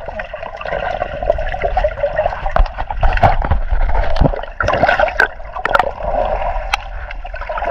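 Underwater recording: muffled rushing and gurgling of water around the submerged camera, with scattered sharp clicks and knocks.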